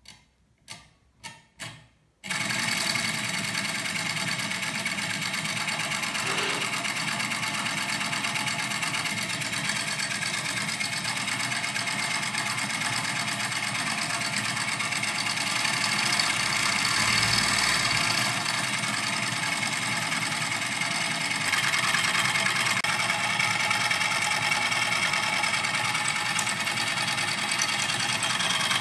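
Four quick clicks, then about two seconds in a homemade scroll saw starts up: its 12 V 775 DC motor drives a toothed belt and crank that moves the spiral hacksaw blade up and down, running steadily. It grows a little louder past the middle.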